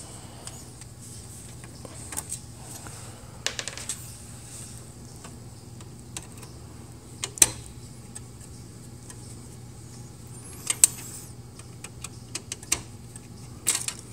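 A screwdriver turning a black screw out of an HP LaserJet 4250's swing plate, heard as scattered small clicks and metallic ticks. A couple of sharper clicks come about seven and eleven seconds in, over a faint steady hum.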